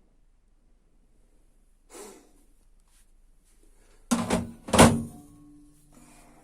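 Knocks from work on a washing machine's casing: one soft knock, then a few loud thunks in quick succession about four seconds in, followed by a short metallic ring.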